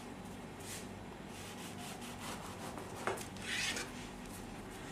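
Knife sawing through a soft burger bun on a wooden cutting board: soft rasping strokes, with a sharp knock about three seconds in and a louder rasp just after it.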